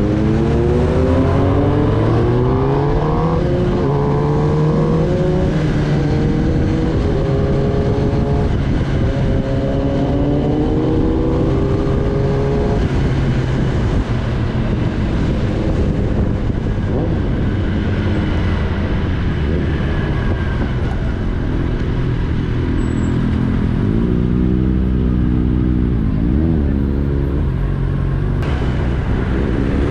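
Kawasaki Ninja ZX-10R's inline-four engine accelerating through the gears, its pitch climbing again and again in the first dozen seconds, then running more steadily at a lower pitch, with a few short rises and falls in pitch later on and another climb at the very end.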